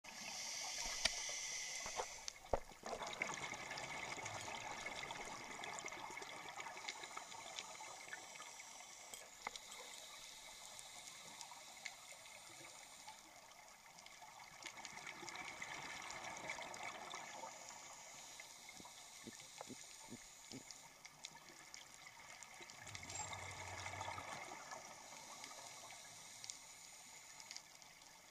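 Underwater sound of a scuba dive: bubbly water noise from the diver's breathing through the regulator, swelling and fading several times, with scattered faint clicks.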